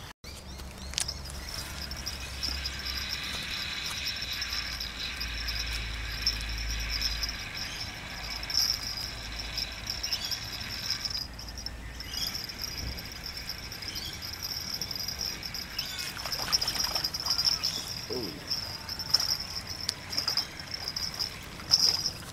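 Insects chirring steadily in a continuous high-pitched chorus, with a low rumble underneath for roughly the first half and a few light knocks near the end.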